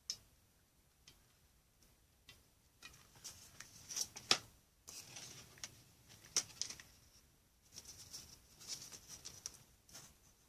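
Small crafting handling noises: light clicks and taps, with crinkling of a clear cellophane sheet as a foamboard disc is glued and pressed onto it. The sharpest tap comes about four seconds in, with spells of rustling after it.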